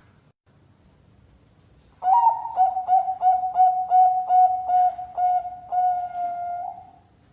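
Perkutut Bangkok (Thai-bred zebra dove) cooing: about two seconds in, one song starts with a rising note, runs into a string of short, even notes at about three a second, and ends on a longer held note.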